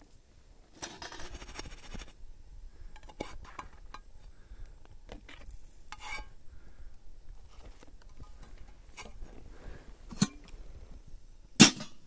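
Camp cookware and utensils clinking and scraping: scattered light clicks, a scrape lasting about a second near the start, and two sharp knocks near the end, the second the loudest.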